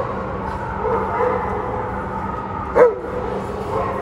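Dogs barking and yipping over the steady din of a busy hall, with one loud, sharp bark a little under three seconds in.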